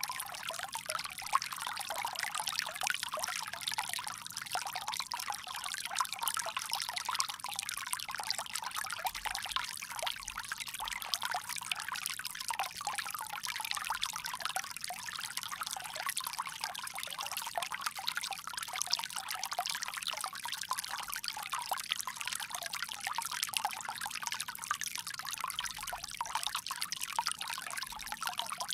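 Water pouring steadily from a bamboo spout, a continuous splashing trickle that is mostly high and bright, with little low end.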